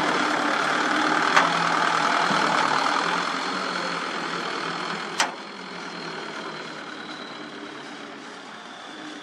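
Light dump truck's diesel engine pulling away, then fading as the truck drives off. Two sharp knocks ring out, one about a second in and one past halfway.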